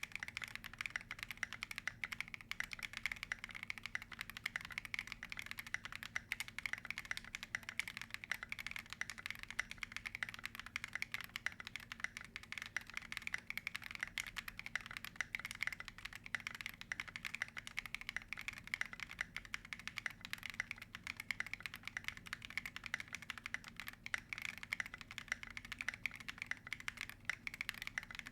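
Continuous rapid typing on a custom M1W gasket-mount mechanical keyboard with a polycarbonate plate, stock Akko Yellow linear switches and SA-profile keycaps: a dense, even stream of keystrokes.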